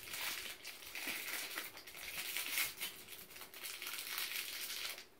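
A small crinkly plastic packaging bag being pulled open and handled, a run of rustling and crackling that stops abruptly near the end.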